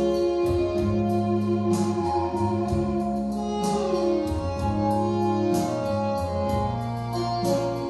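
Church music accompaniment: sustained organ-like keyboard chords over a light, regular beat.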